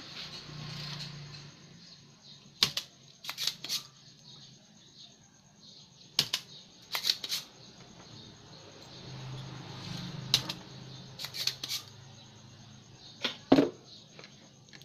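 Spring-loaded desoldering pump snapping as it is cocked and fired, about a dozen sharp clicks in small groups, while solder is sucked off the pins of a power-supply regulator. A faint low hum underneath rises and falls twice.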